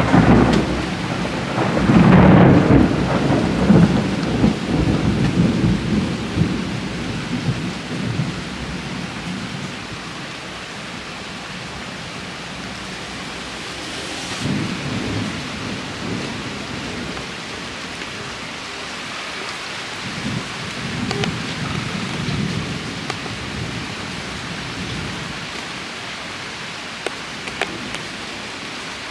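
Thunder rumbling over steady rainfall. The loudest roll comes in the first few seconds and dies away into the even hiss of rain. Fainter rolls of thunder follow about halfway through and again a little later.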